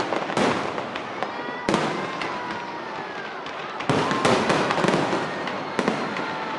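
Fireworks display: aerial shells bursting one after another with crackling between them, and a few whistling tones gliding in pitch about a second in; a dense cluster of bursts starts about four seconds in.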